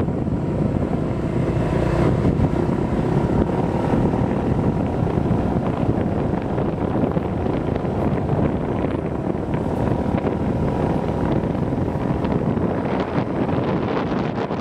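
Motorbike riding along a road: wind rushing steadily over the microphone, with the bike's engine running underneath.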